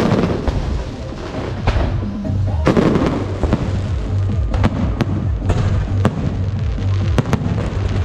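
Aerial fireworks shells bursting overhead: a run of sharp bangs and crackles, with a denser crackling burst about three seconds in.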